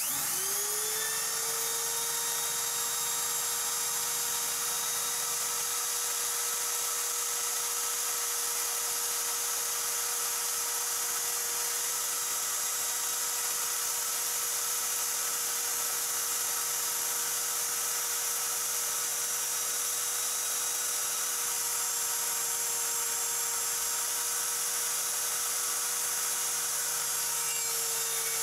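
Router motor on an OX CNC router switching on through its solid-state relay as the G-code starts, spinning up over about a second, then running steadily with a high whine.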